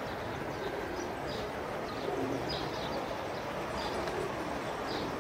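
Scattered short, high bird chirps over a steady outdoor background hum.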